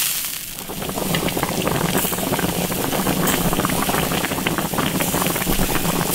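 Seasoned fish-head broth boiling in a wok: a steady bubbling full of small pops, over a low steady hum.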